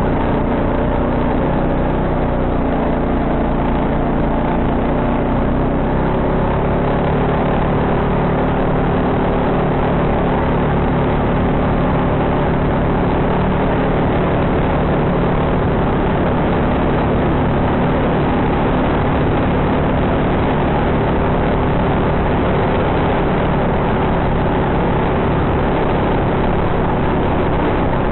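ATV engine running at a fairly steady speed while the quad is ridden, a continuous drone with no breaks.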